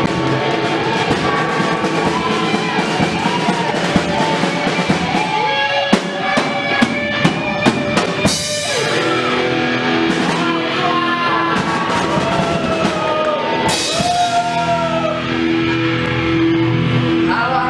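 Live rock band playing: electric guitars, bass guitar, drum kit and keyboard, with a male voice singing. About six seconds in the drums play a quick fill that ends on a cymbal crash, and another crash comes later.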